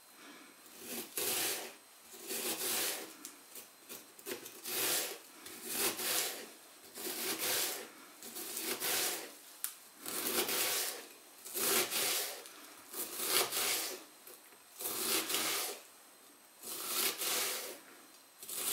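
Chef's knife slicing down through a halved onion onto a plastic cutting board, cutting it into small dice: a crisp crunching rasp with each stroke, about one stroke every second and a half.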